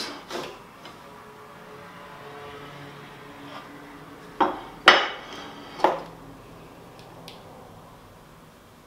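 Ceramic plates knocked and set down on a wooden board: a few sharp clinks with a short ring, most of them bunched about four to six seconds in.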